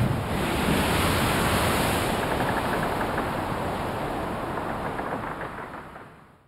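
Steady rushing noise, like ocean surf, that fades away over the last second or so into silence.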